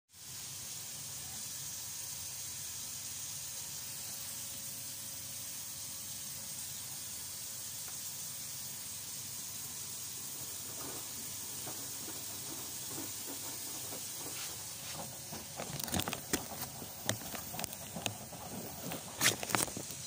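LG front-loading washing machine filling: a steady hiss of water spraying into the drum. From about 15 s on there is a run of irregular clicks and knocks, the loudest shortly before the end.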